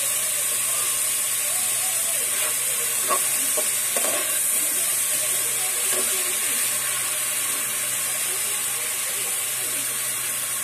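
Sliced onion, garlic and green chillies sizzling in soybean oil in a pan, a steady hiss, with a spatula stirring and knocking against the pan a few times around the middle.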